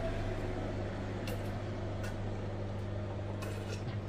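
Microwave oven running with a steady low electrical hum, with a few faint clicks.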